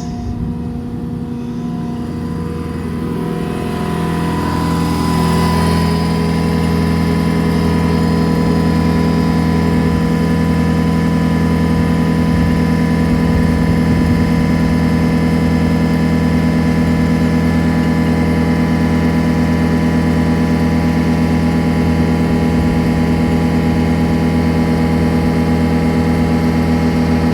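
A heavy engine running steadily at a constant speed. It grows louder over the first few seconds as more mechanical sound comes in, then holds.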